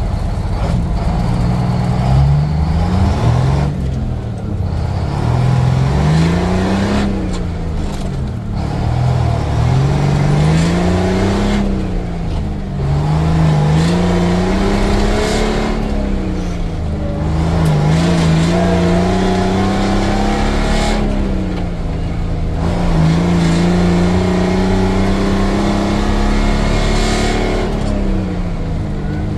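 Detroit Diesel engine of a 6x6 International Harvester truck pulling through the gears, its pitch climbing and dropping back with each shift, then holding at a steady speed for the last third.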